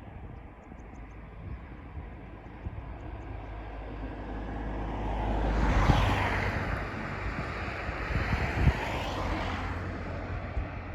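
A vehicle passing by: a rushing sound that swells to its loudest about six seconds in and then slowly fades.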